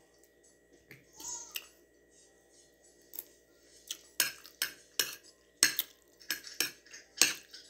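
A metal fork and spoon clinking and scraping against a plate while eating, in scattered sharp clinks that come more often in the second half.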